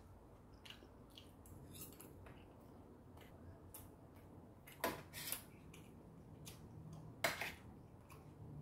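Stainless steel chopsticks and spoon clicking and tapping against a stainless steel compartment meal tray, with scattered light clicks and a few louder clinks about five and seven seconds in.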